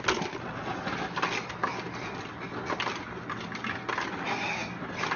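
A dog's claws scratching and scrabbling at a cabinet drawer, with many irregular knocks and clatters, over a steady low hum.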